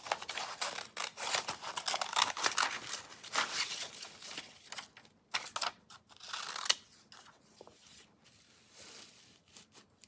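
Scissors snipping through paper in a quick run of short cuts, thinning out to scattered snips after about five seconds.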